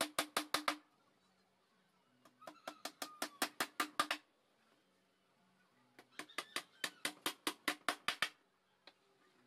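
Claw hammer driving small nails into a plywood speaker-box panel: three quick runs of rapid taps, about six a second, each run driving one nail home over about two seconds, with short pauses between, and a single tap near the end.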